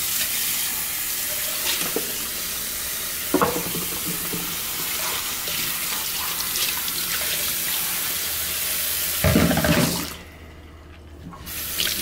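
Kitchen tap running water into a stainless steel sink as a ceramic Stone Wave egg cooker is rinsed and scrubbed with a sponge under the stream, with a few knocks of the dish. There is a louder burst of splashing just before ten seconds in, then the flow stops and the water runs again briefly near the end.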